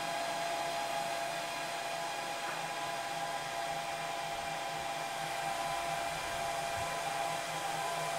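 Dell PowerEdge R710 rack server running through its power-on self-test: a steady whir from its cooling fans, with a few constant tones in it.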